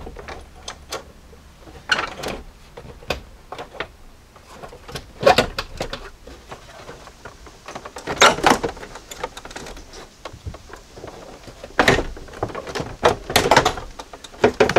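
Dashboard of a 1999 Jeep Cherokee XJ knocking, scraping and clunking as it is worked up and out off its mounting studs: a string of separate clunks and rattles a few seconds apart, the loudest coming in the middle and toward the end.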